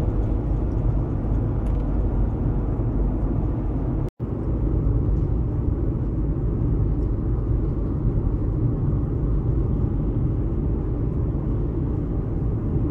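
Steady road and engine rumble heard from inside a moving car's cabin. It drops out for an instant about four seconds in.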